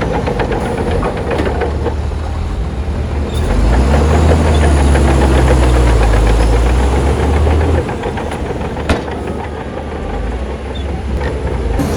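Heavy construction machine's diesel engine running with a deep, steady drone. It grows louder from about four seconds in, drops back just before eight seconds, and a single sharp knock comes about nine seconds in.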